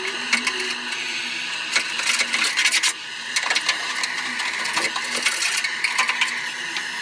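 Handheld gas blowtorch hissing steadily as it burns off car underseal, with a scraper rasping and clicking against the metal underside.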